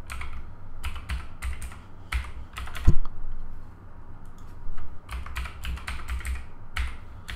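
Typing on a computer keyboard: quick keystrokes in two runs with a short pause between, entering a password and then confirming it. There is a heavier thump about three seconds in.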